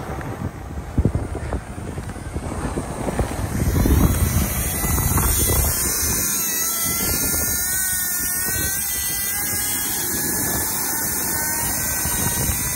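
Wind buffets the microphone for the first few seconds. Then a Penn International 975 baitcasting reel's spool spins steadily as line pays out behind a drone carrying the bait offshore, a whir with a faint whine that slowly rises in pitch.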